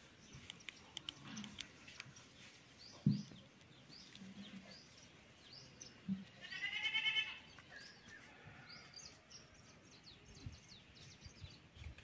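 A goat bleats once, a tremulous call lasting about a second, a little past the middle, over scattered bird chirps. A single sharp thump comes about three seconds in.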